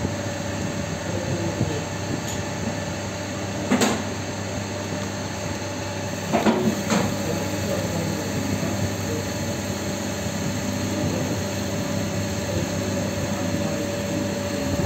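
A steady machine hum, broken by a sharp knock about four seconds in and two more knocks a second or so apart around six and a half seconds.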